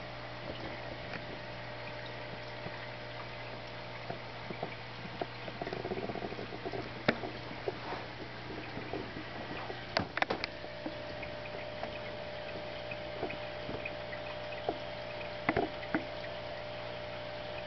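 Aquarium pump humming steadily under bubbling, trickling tank water, with a few sharp clicks, a cluster of them about ten seconds in.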